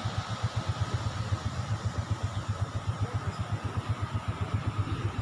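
Small single-cylinder motorcycle engine idling with an even, rapid low putter, a thin steady tone running above it.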